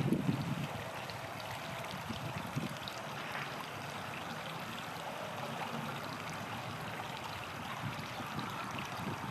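River water running steadily over its stony bed, an even rushing with light wind rumble on the microphone at the start.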